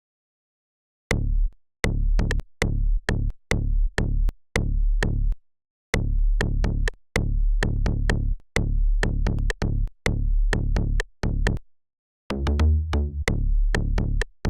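Electronic synth melody with deep bass, playing back: short plucky notes in an uneven rhythm, each starting sharply and dying away quickly. It starts about a second in, and near the end gives way to fuller, longer-held synth notes.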